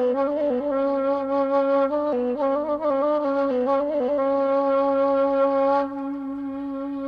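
Saluang, a Minangkabau end-blown bamboo flute, playing a solo melody full of quick ornamental turns, then holding one long steady note, softer, from about six seconds in.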